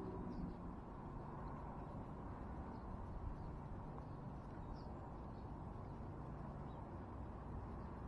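Outdoor garden ambience: a steady low rumble with faint, brief high chirps of small birds scattered through it.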